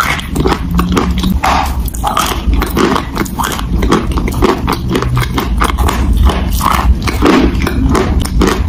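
Close-miked chewing of chalk soaked in chalk paste: a dense, irregular run of wet smacks and small clicks from the mouth.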